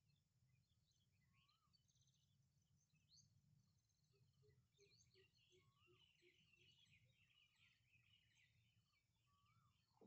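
Faint birdsong: many small chirps and twitters, a whistled note that rises and falls, repeated a few times, and a run of about nine low, evenly spaced notes around the middle, with the chirping growing busier in the second half. A steady low rumble runs underneath.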